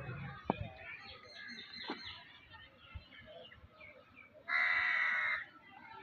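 A single loud animal call lasting about a second, over a faint busy background with a couple of sharp clicks early on.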